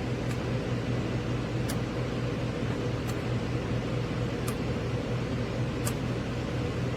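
VIVOSUN AeroWave E6 clip fan with an EC motor, running with a steady hum and airy whoosh. A faint sharp tick repeats about every one and a half seconds.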